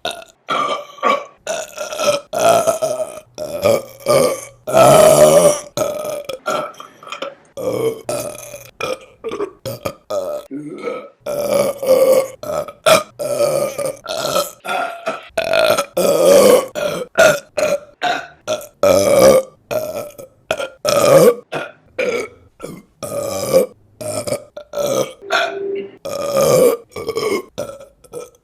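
A woman burping loudly, dozens of separate burps one after another, many starting and stopping abruptly as if cut.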